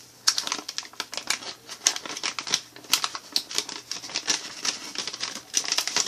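Handling noise from a flat USB-A to Lightning cable being handled: a rapid, irregular run of small clicks and rustles.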